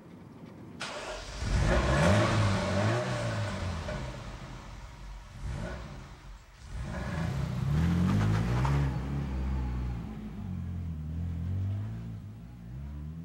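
Ferrari sports car engine running and revving hard, its pitch sweeping up and down. About six and a half seconds in there is a short lull, then a second burst of revs, after which the note settles steadier as the car pulls away.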